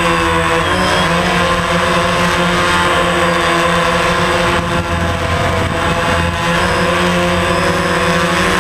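DJI Phantom quadcopter's motors and propellers droning steadily in a hover, their pitch wavering slightly with throttle corrections about a second in. Heard up close from the GoPro mounted on the drone.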